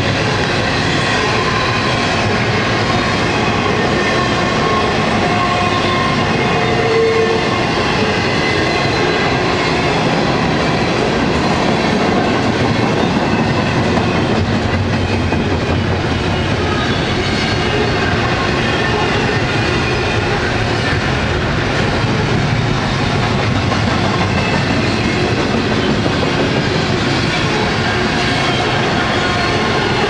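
Double-stack intermodal freight train of container well cars rolling past: a steady, loud rumble and clatter of steel wheels on rail.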